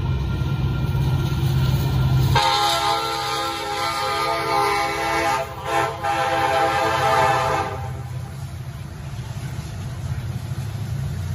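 Union Pacific diesel locomotive sounding its air horn for the grade crossing, a chord of several steady tones lasting about five seconds with two brief breaks near the middle. Under and after it, the low rumble of the locomotives rolling past.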